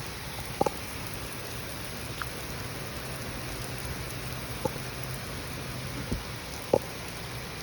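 Heavy thunderstorm rain pouring down steadily, with a few sharper taps of drops standing out.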